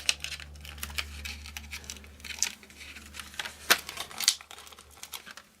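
Backing papers being peeled off foam adhesive dimensionals, with small crinkles and ticks of paper, over a low steady hum that stops about four seconds in.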